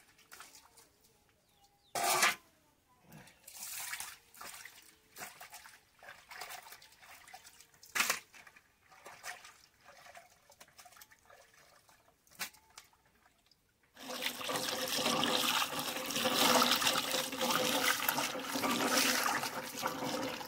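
Water splashing and rattling as a plastic bucket and steel plate are rinsed, with two sharp knocks. About 14 seconds in, a steady stream of water from a hand pump starts pouring into a plastic bucket and runs on as the loudest sound.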